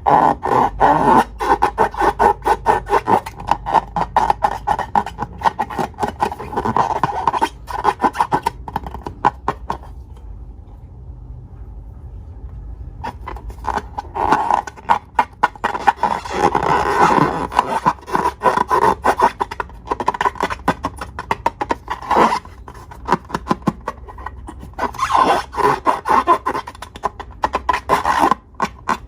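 Slime being squeezed and worked by hand: runs of rapid, sticky crackling clicks and squelches, easing off to a quieter stretch about ten seconds in and picking up again a few seconds later.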